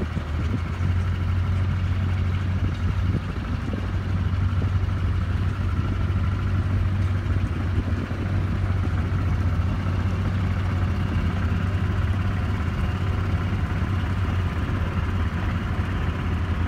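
A large engine idling steadily, a low, even drone with no change in speed.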